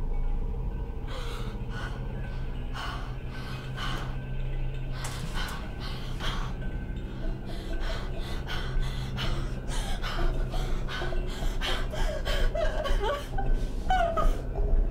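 A woman gasping and panting in pain, short sharp breaths that come faster toward the end, over a low steady music drone.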